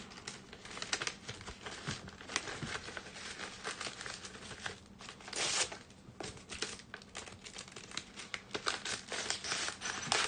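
Trading-card packaging being crinkled and torn open by hand, with irregular small clicks and rustles of wrapping and cards being handled, and one longer rustle about five seconds in.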